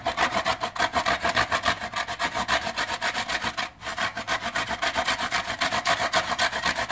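A frozen lemon's peel being grated on a hand grater: fast, steady back-and-forth rasping strokes, about six or seven a second, with a short break just past halfway.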